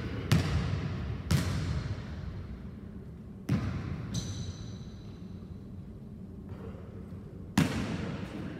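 A basketball hitting a hardwood gym floor in four single, hard bounces spaced well apart, each one echoing on through the large hall.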